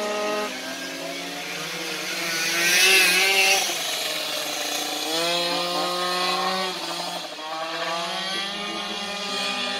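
Several two-stroke moped engines revving together on a track, their pitches rising and falling as they accelerate and ease off. One passes loudest about three seconds in with a high wavering whine, and another winds up again about five seconds in.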